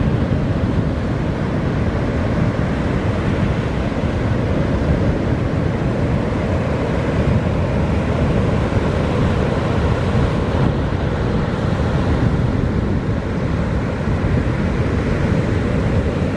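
Surf breaking steadily, with wind buffeting the microphone.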